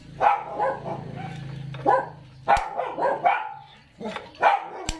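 A dog barking repeatedly in short yelps, with a couple of sharp clicks in between.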